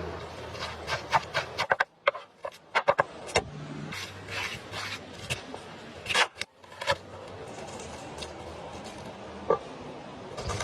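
Cooking utensils scraping and rubbing, with a quick run of sharp knocks and clicks in the first few seconds and a few more later.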